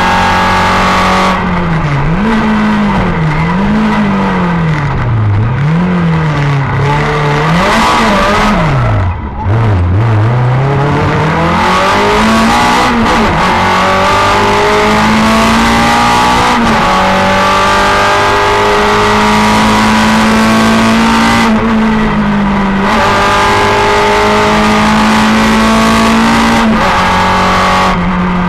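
Simca 1000 rally car's rear-mounted four-cylinder engine at full effort, heard from inside the cabin. The revs climb and fall quickly again and again through a run of bends, dip sharply about nine seconds in, then hold longer high-rev pulls between shifts.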